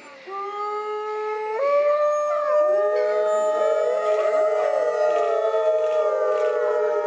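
A pack of Hudson Bay wolves howling in chorus. A single long howl starts, jumps up in pitch about a second and a half in, and then several more wolves join at different pitches, their howls overlapping.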